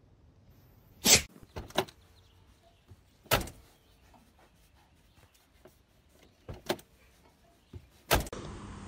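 A sheep butting its head against a car's door: a series of sharp knocks on the door panel at irregular intervals.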